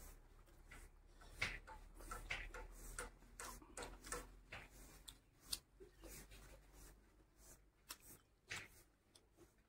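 Fingers mixing rice and curry on a plate, making a scatter of faint, short, sticky clicks, with a handful put into the mouth near the end.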